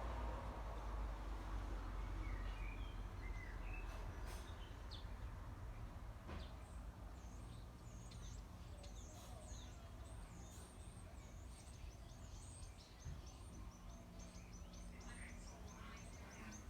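Faint birdsong: many short high chirps and twitters, growing busier about halfway through, over a low steady background rumble.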